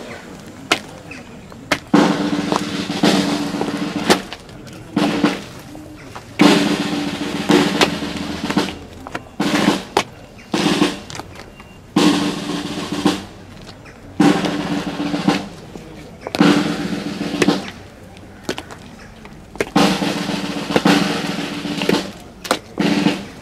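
Snare drum playing a series of rolls, each one to three seconds long, with short pauses between them.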